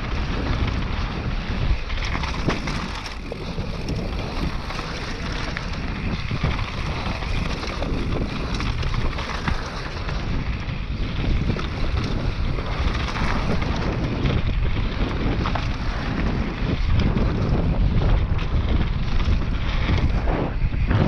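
Steady rush of wind buffeting the microphone of a mountain biker riding a trail at speed, with an uneven low rumble from the ride over the ground.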